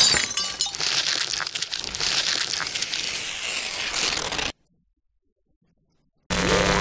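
Paper crumpling and tearing, a dense crackle of small cracks that cuts off abruptly after about four and a half seconds. After a pause, a steady low pitched tone begins near the end.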